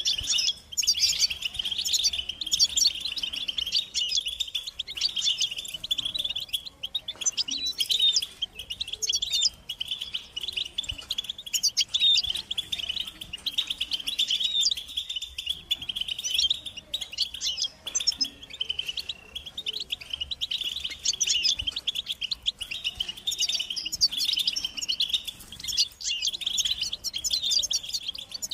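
A group of European goldfinches twittering and chattering without a break, a dense stream of rapid, high tinkling chirps and trills.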